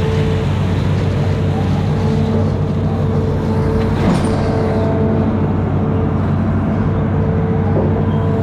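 Amphibious excavator's diesel engine running steadily under work, with a steady whining tone over the engine hum and a single knock about four seconds in.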